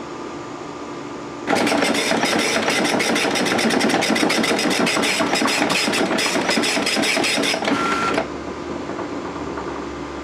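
Okidata Pacemark 3410 9-pin wide-carriage dot matrix printer printing plain text in utility mode: a loud buzz of rapid pin strikes in quick line-by-line passes, starting about a second and a half in and stopping about eight seconds in. A quieter low hum follows.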